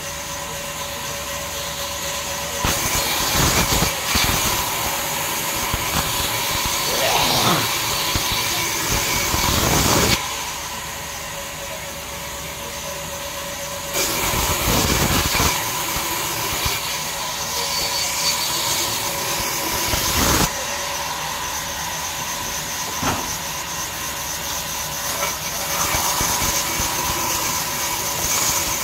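Large sawmill band saw running with a steady whine, rasping through jackfruit wood in two long cuts of several seconds each. Between and after the cuts the blade runs free and the sound drops back, then cutting picks up again near the end.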